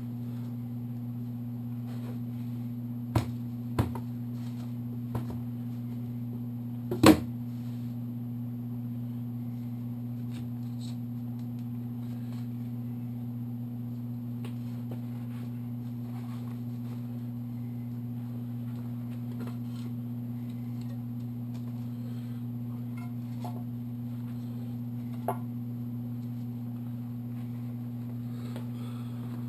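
Tools and engine parts knocking and clinking a few times during hands-on work on a motorcycle engine, with the loudest clank about seven seconds in. A steady low hum runs underneath throughout.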